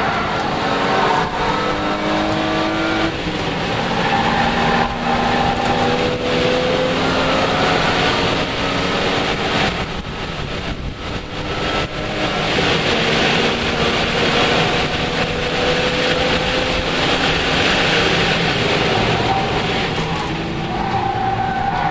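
Lexus IS300's straight-six race engine under hard acceleration, heard from inside the cabin over road and wind noise, its pitch climbing slowly through a long pull. About ten seconds in the engine eases off briefly, then pulls and climbs again.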